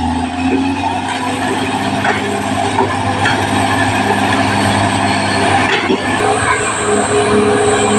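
Caterpillar D6R XL crawler bulldozer working, its diesel engine running steadily under load over a constant metallic clatter of the steel tracks. A steady whine comes up more clearly near the end.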